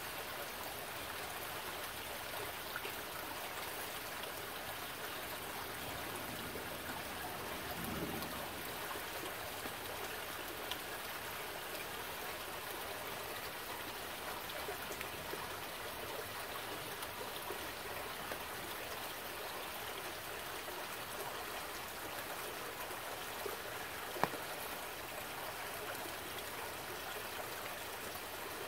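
Shallow forest stream trickling over rocks: a steady babble of running water, with a few isolated sharp ticks standing out, the loudest near the end.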